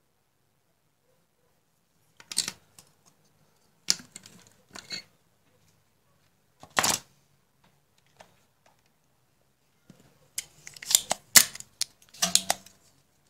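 Handling noises at a workbench: scattered short clicks, scrapes and rustles of small parts and tools being moved, with a busier cluster of them in the last few seconds.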